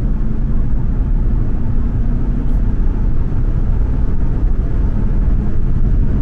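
Steady low rumble of a car driving through a road tunnel, heard from inside the cabin: tyre and engine noise at cruising speed.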